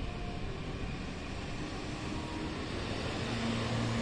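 Steady outdoor background noise, a hiss and rumble with no clear single source. A low steady hum comes in about three seconds in.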